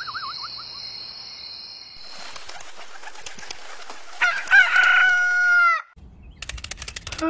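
A rooster crowing once for about a second and a half, its call falling away at the end, over a rustle like flapping wings: a morning sound effect. At the start a warbling whistled snore tails off, and a few sharp clicks come near the end.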